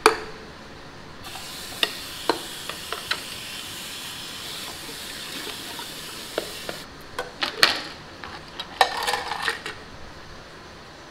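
Tap water running into a sink while a camp plate and cook pan are scrubbed, with a few clinks of the dishes. The water stops about seven seconds in, followed by a run of clattering as the plate and plastic fork and knife are stacked back into the pan.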